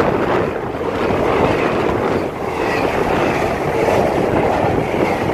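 Freight train behind two pairs of Class 90 electric locomotives passing through at speed: a steady, loud rushing rumble of the wagons going by.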